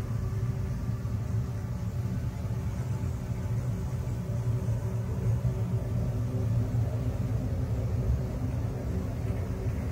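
Deep, steady rumbling drone with faint held tones above it, a 'sound of space' track that the uploader presents as spacecraft-recorded electromagnetic signals converted into audible sound.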